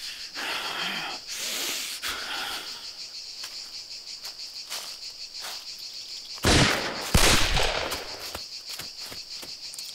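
Two gunshots about two thirds of the way in, well under a second apart, each dying away in a long echo, over a steady high chirring of insects.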